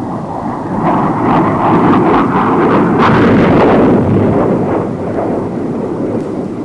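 Aircraft bomb exploding on impact: a long, loud rumbling blast with crackle, swelling about a second in and slowly dying away.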